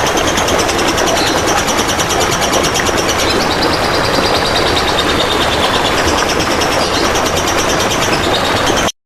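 Trickling water with a songbird's rapid, high, repeating trill over it. The sound cuts off abruptly near the end.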